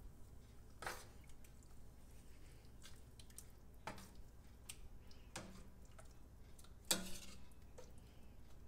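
Metal spoon stirring thick tomato sauce and chopped greens in a stainless steel pot: faint wet squishing, with a few short clinks of the spoon against the pot, the loudest about seven seconds in.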